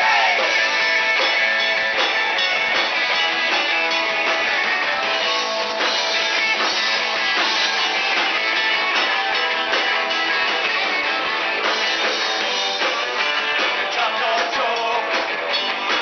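Live rock band playing loud: electric guitars and a drum kit, with steady drum hits throughout.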